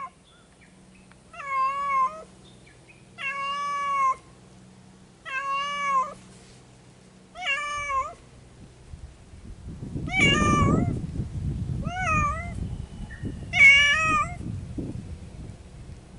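Cat meowing repeatedly: about seven long, drawn-out meows, roughly two seconds apart. A low rumbling noise joins underneath from about nine seconds in.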